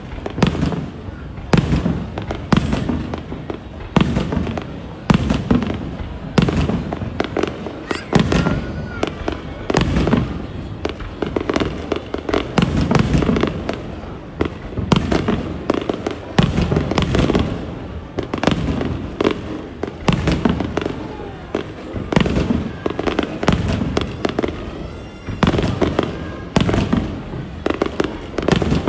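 Aerial fireworks display: a dense, continuous run of booming shell bursts and sharp cracks, several a second, with no break.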